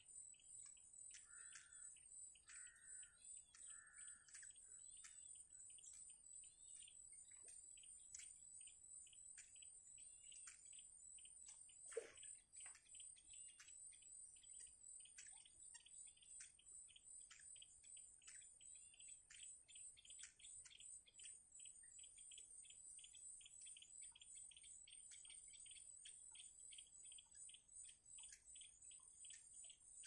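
Faint outdoor ambience of a steady high insect trill with a long series of short, falling bird chirps repeating a couple of times a second, and one louder falling call about twelve seconds in.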